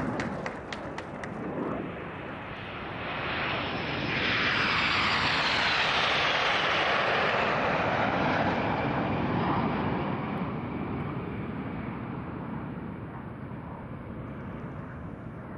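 A formation of Aermacchi MB-339 jet trainers flying past. The turbojet roar swells to its loudest a few seconds in, then drops in pitch and fades as the jets pass and move away.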